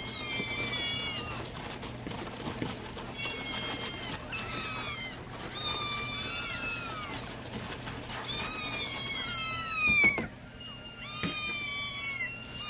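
Several young kittens meowing over one another: high-pitched calls, each falling in pitch, as they beg to be fed. A sharp knock about ten seconds in.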